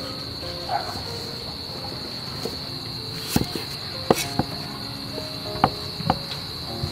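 Knife cutting through jackfruit and knocking on a wooden chopping board, about five sharp knocks starting about three seconds in, over a steady high chirring of crickets.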